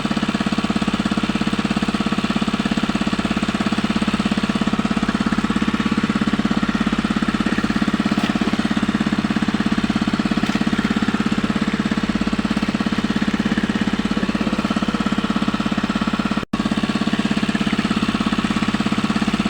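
Small engine running steadily with a fast, even knocking beat and a strong low hum. The sound drops out for an instant about three-quarters of the way through.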